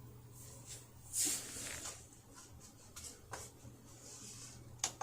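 CRT television being switched on: a short hissing crackle about a second in, then a few sharp clicks, over a steady low hum.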